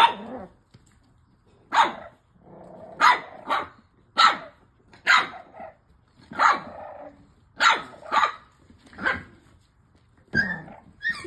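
French bulldog puppies barking in play-fighting: a string of sharp barks, about one a second, with some growling between them.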